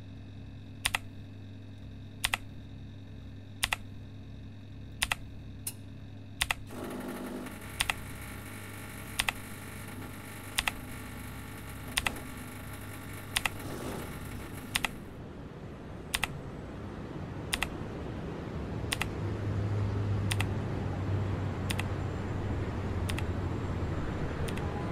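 Single sharp clicks at an even, slow pace, about one every second and a half, over a low hum. From about midway a steady noise builds beneath them, and it turns into a louder street-traffic wash near the end.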